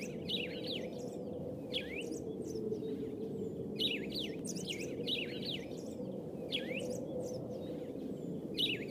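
Small birds chirping and twittering in short quick bursts with pauses between, over a steady low background rush.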